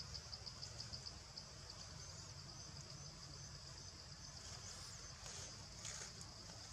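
Faint, steady high-pitched chorus of insects, with a few soft bird chirps over it.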